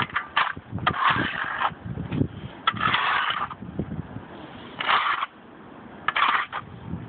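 Snow shovels scraping along a snowy sidewalk in repeated strokes, about four long scrapes a second or two apart, with short crunching thuds between them.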